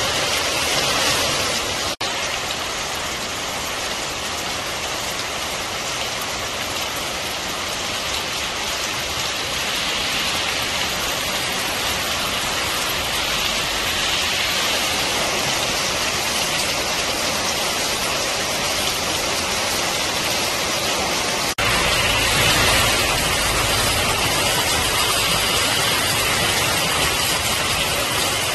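Heavy rain pouring down: a steady, loud hiss. It breaks off sharply twice, and after about twenty seconds it comes back fuller and deeper.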